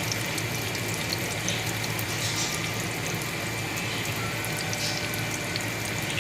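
Breaded green tomatoes frying in hot oil: a steady sizzle with small, rapid crackles and pops, over a faint steady hum.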